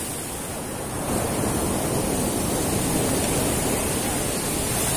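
Steady rushing noise of sea surf, even and without any clear beat.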